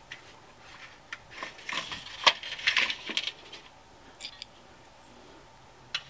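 Light metallic clinks and scrapes as a screwdriver works against an aluminum storm-door hinge rail, a cluster in the middle with one sharper click, then a couple of faint clicks.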